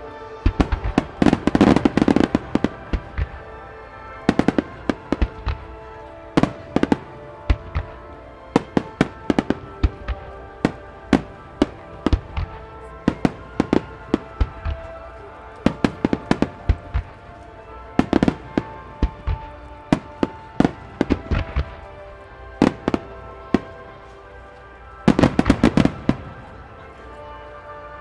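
Aerial fireworks in a starmine barrage: a rapid string of sharp bangs, with dense crackling salvos about a second in and again near the end. Music plays underneath.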